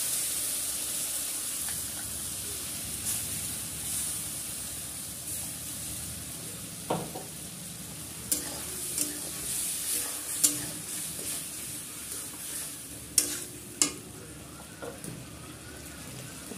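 Wet masala paste sizzling in hot oil in a kadai, the hiss slowly dying down as the paste settles. Through the second half a metal spatula scrapes and clacks against the pan several times as it is stirred.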